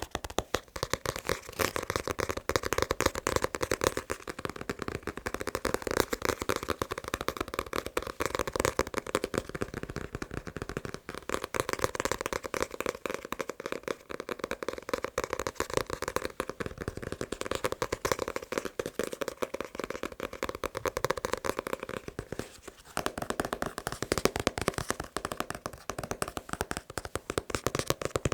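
Fast tapping on a manga book: a dense, continuous run of quick taps, with a brief pause about three-quarters of the way through.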